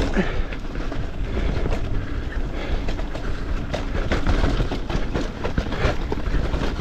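Electric mountain bike riding down a rough, rooty dirt singletrack: a steady rumble of tyres on the trail, with frequent clicks and rattles from the bike and a low buffeting of wind on the microphone.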